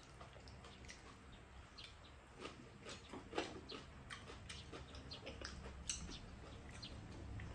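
Quiet eating sounds: scattered wet mouth clicks and smacks of two people chewing and slurping food from spoons, a couple slightly louder about three and six seconds in.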